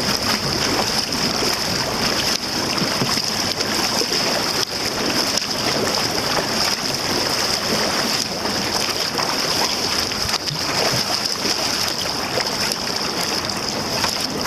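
Double-bladed paddles splashing with each stroke and water rushing along the hull of a tandem racing kayak paddled hard at sprint pace.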